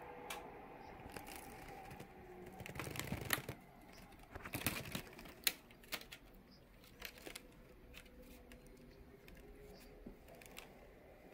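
Close rustling and light clicks as a cat moves right up against the recording phone. The noise is densest between about two and six seconds in, with the sharpest click about five and a half seconds in, then thins to a few scattered ticks.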